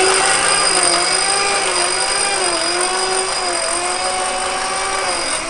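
Vehicle-mounted winch motor whining steadily as it winds in the cable under load, pulling the 4x4 toward an anchor tree; the pitch wavers slightly.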